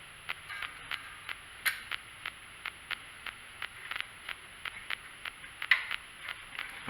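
Light mechanical clicks, about three a second, from the throttle and governor linkage of a carburetor being worked back and forth on a 212cc engine, checking that the linkage moves freely without binding.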